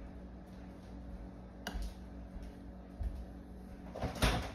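Small knife slicing a soft avocado and clicking against the ceramic plate beneath it: a few light clicks, the loudest cluster near the end.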